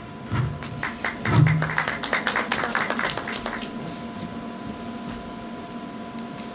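Audience applauding for about three and a half seconds, with two low thuds in the first second and a half. It then gives way to a quiet steady hum.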